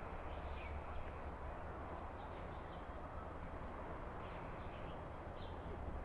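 Outdoor ambience: a steady low rumble and hiss with faint, scattered short high chirps.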